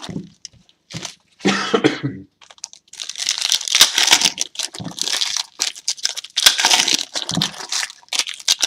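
Foil trading-card pack wrappers crinkling and tearing as packs are opened, in a series of short rustling bursts. A cough about one and a half seconds in.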